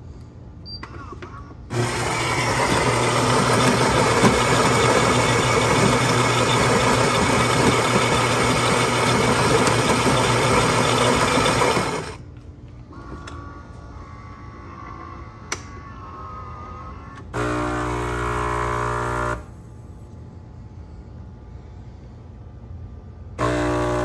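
Philips 3200 espresso machine's built-in ceramic grinder grinding coffee beans for about ten seconds, followed by a softer whir and a click as the brew unit doses and tamps the grounds. Its water pump then buzzes for about two seconds, stops, and starts again near the end as the brew begins.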